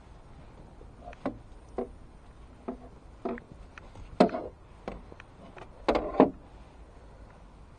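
Irregular light knocks and clunks from a landing net and its pole being handled and swung out, about ten in all, the loudest a sharp knock about four seconds in and a quick cluster around six seconds.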